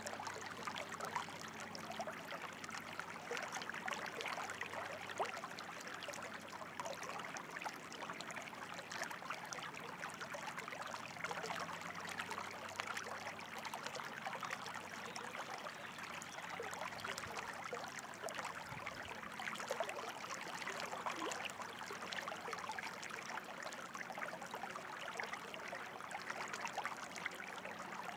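Running water flowing and trickling in a steady, unbroken rush, with fine splashing detail.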